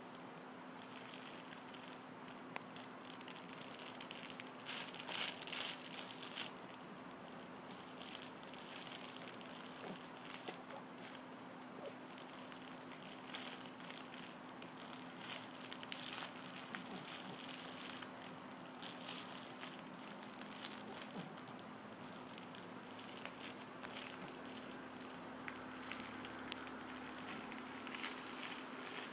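Soft cloth baby book rustling and crinkling in irregular bursts as a baby mouths and handles it, busiest about five seconds in. A faint steady hum runs underneath.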